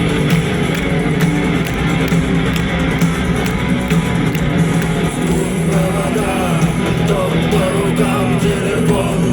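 Rock band playing live at a concert: bass, drums and guitar, with singing coming in about halfway through.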